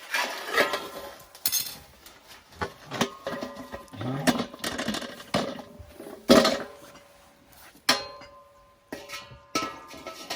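Metal camping cookware and utensils clattering as they are handled and set down: a run of irregular knocks and clinks, some ringing briefly.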